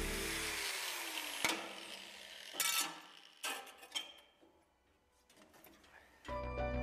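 Background music fading out, then a few sharp, separate metallic clicks and clanks as a freshly cut piece of aluminium sheet is worked loose by hand, with near quiet between them. Music comes back in near the end.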